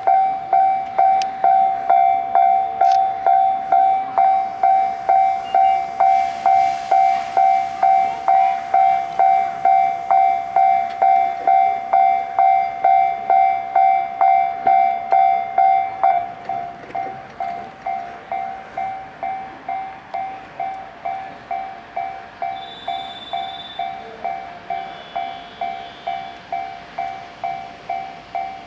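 Japanese railway level-crossing warning bell ringing its repeating 'kan-kan' alarm, just under two strokes a second. It drops noticeably in volume a little over halfway through while keeping the same pace.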